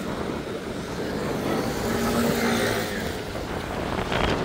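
Street traffic: a motor vehicle's engine passes close by, swelling to its loudest about two seconds in, over a steady hum of traffic, with a short knock near the end.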